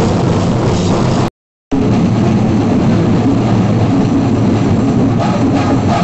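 Loud, dense chenda drumming of a singarimelam ensemble, a steady wall of drum strokes, with a brief gap of silence about a second in before it carries on just as loud.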